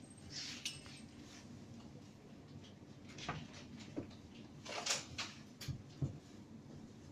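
Scattered knocks and light rattles as two kittens tussle and bump against the glass-and-aluminium walls of a display enclosure. The loudest come about five to six seconds in, over a steady low background hum.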